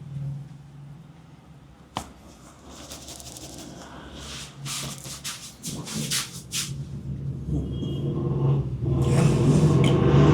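Hands rubbing over skin and hair during a head massage, a series of brushing strokes, with one sharp click about two seconds in. A low rumble underneath grows louder near the end.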